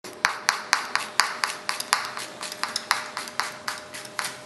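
Kitchen knife chopping a red chili pepper on a cutting board: quick, even sharp taps of the blade on the board, about four a second.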